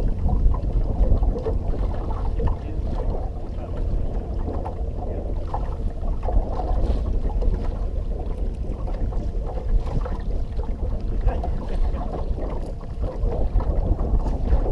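Wind buffeting the microphone in a steady low rumble, with water lapping irregularly against a fishing boat's hull.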